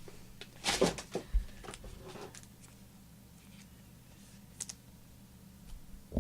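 Trading cards and packs being handled on a table: a brief swish of cards sliding just under a second in, then a few light clicks and taps, over a low steady electrical hum.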